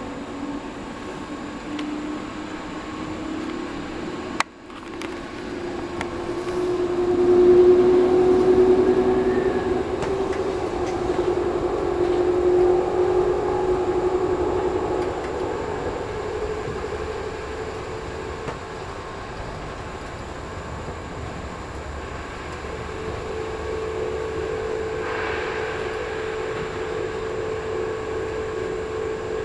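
City Airport Train running, heard from inside the carriage: a steady rumble under an electric motor whine that climbs in pitch as the train gathers speed. The sound is loudest about a quarter of the way in, then settles into a steady hum. A single sharp click and a brief dropout come early on.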